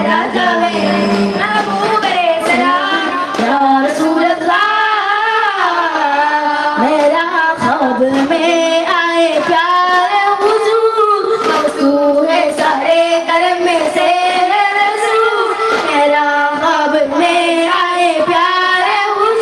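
High boys' voices singing a devotional song over the beats of hand-struck daf frame drums, the accompaniment of a Daff Muttu performance.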